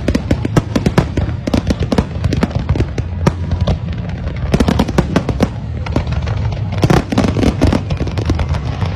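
Fireworks display: a rapid, dense string of bangs and crackles from exploding shells, with a heavier cluster of bursts about seven seconds in.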